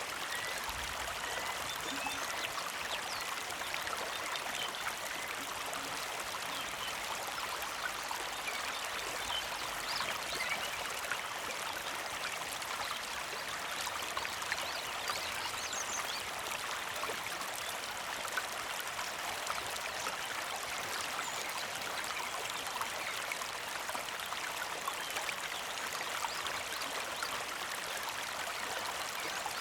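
Small mountain creek flowing steadily, a gentle trickle and babble of water over stones.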